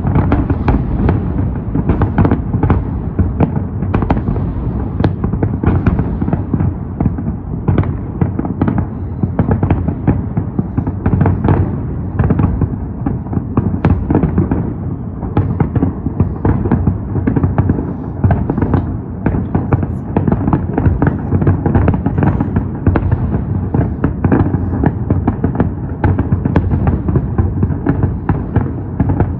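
Fireworks salute: a dense, unbroken barrage of shells bursting, many sharp bangs and booms overlapping with no pause.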